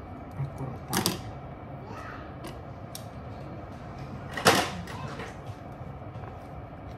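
Kitchen scissors and a plastic piping bag being handled: two short, loud rustling snips about a second in and about four and a half seconds in, with a few light clicks between, over a steady background hum.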